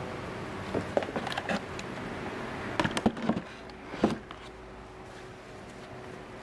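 Handling of a cardboard shipping box and its packaging: short clusters of knocks and rustles about a second in and around three seconds in, and one sharp knock near four seconds, over a steady background hiss.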